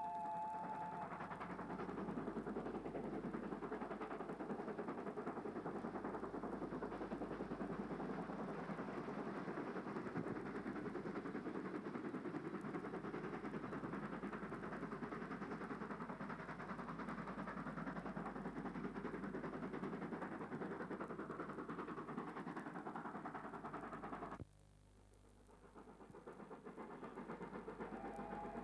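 South African Railways Class 15F steam locomotive working a passenger train: a steady rush of exhaust and running noise. The sound cuts off sharply about 24 seconds in, then builds back up, with a long steady two-note tone near the end.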